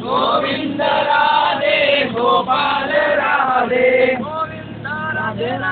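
Voices singing a chant together, with held, gliding notes, over a steady low hum from the moving vehicle.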